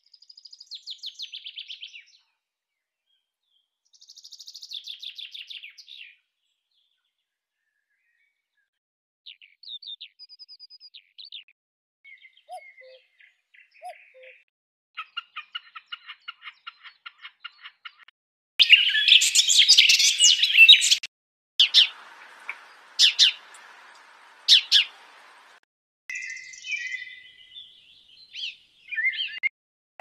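A string of different wild birds' songs and calls, separated by short silences. It opens with two descending trilled songs of a common chaffinch, then scattered short chirps and calls, with the loudest, densest calling about 19 to 21 seconds in.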